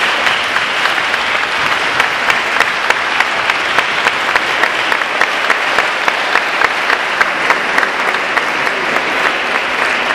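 Spectators applauding, a dense patter of hand claps with sharper single claps standing out about three times a second.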